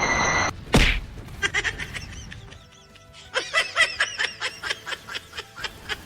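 A single sharp hit about a second in, then background music with a quick, even beat of short plucked-sounding notes.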